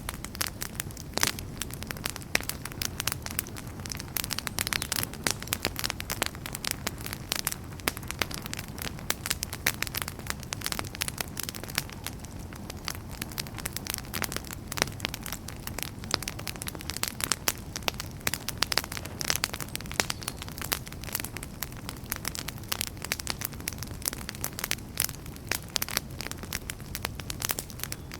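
Campfire burning, with dense, irregular crackles and pops from the burning wood over a steady low rumble of the flames.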